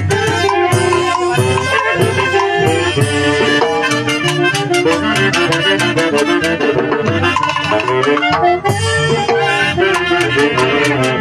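Loud festive dance music with a steady, quick beat and a melody line over it.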